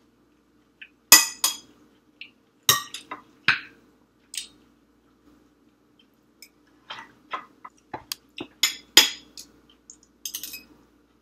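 A spoon clinking and scraping against a glass bowl of rice: a scattered series of short, sharp clinks with a little ring, the loudest about a second in and near nine seconds in.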